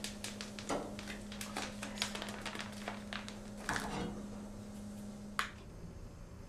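Mint crackling and popping as it fries in hot oil in a pan, for the nana dagh topping of ash reshteh. A steady low hum runs beneath and stops near the end, just after one sharp click.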